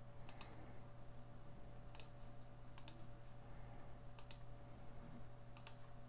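Computer mouse button clicking: five sharp clicks a second or so apart, each a quick press-and-release pair, over a low steady hum.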